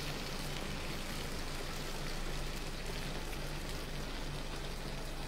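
Steady hiss from a stockpot of whole chickens in Coca-Cola on a stove burner, over a steady low hum.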